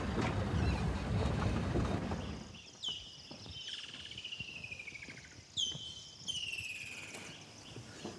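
A vehicle engine rumbles for the first couple of seconds, then fades out. A bird sings after that, with short high whistled notes that slide down in pitch, some of them trilled, repeated a few times.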